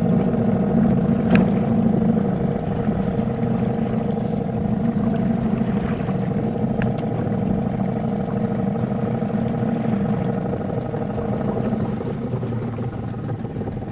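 A motor engine running at a steady speed, a constant even drone that eases slightly near the end.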